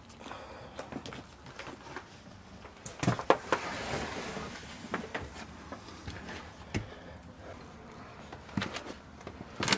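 Footsteps and scuffing on a debris-strewn wooden floor, with scattered knocks and clicks. A stretch of rustling comes a few seconds in.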